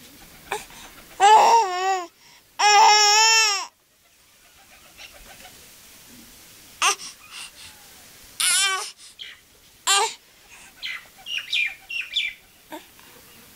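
A toddler's high-pitched babbling squeals: two loud drawn-out wavering cries in the first few seconds, then a few shorter squeaks with quiet gaps between.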